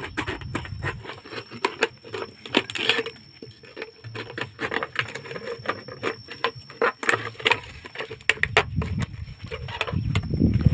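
Rapid, irregular clicking and tapping, with a low rumble that grows loudest near the end.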